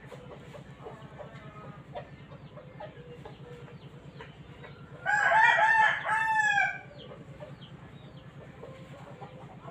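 A rooster crowing once, about halfway through, in a drawn-out two-part call, over a steady low hum.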